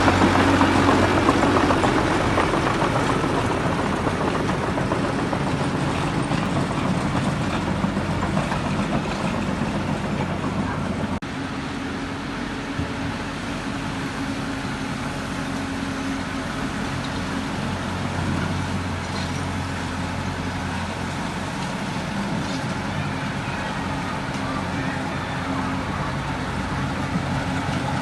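Heavy diesel earthmoving machinery running, a steady engine drone under a loud grinding rumble that is heaviest in the first few seconds. The sound drops down a step about eleven seconds in and then runs on more evenly.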